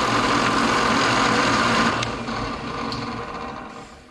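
Belt-driven drill press running as a makeshift lathe, spinning a piece of plastic cutting board with a steady motor hum; about two seconds in it is switched off and winds down, fading over the last two seconds.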